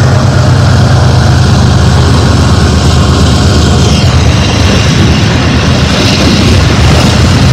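BNSF intermodal freight train passing close by: a loud, steady low drone of diesel locomotive engines mixed with the rumble of the rolling train. The higher rushing and rattling noise grows about four seconds in.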